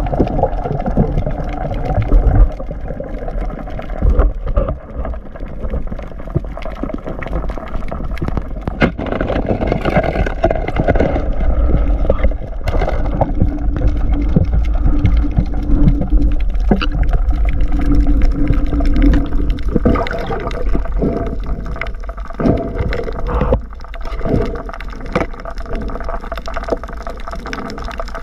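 Underwater sound picked up through an action camera's waterproof housing: water rushing and gurgling over a low rumble, broken by scattered knocks and clicks. A faint low hum comes and goes in the middle.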